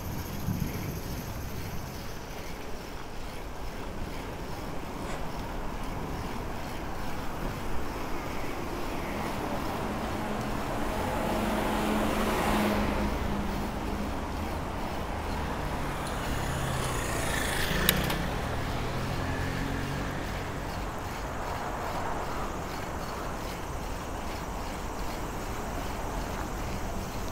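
Steady outdoor street noise heard while riding a bicycle. A motor vehicle passes about twelve seconds in and swells up with a low hum, then fades. A second swell follows a few seconds later with a single sharp click.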